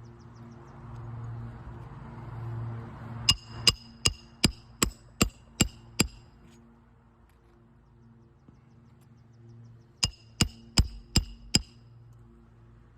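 Roofing hammer driving nails into a newly laid 3-tab asphalt shingle: a run of eight sharp, ringing blows about three seconds in, then five more near the end. A lawnmower engine hums steadily in the background.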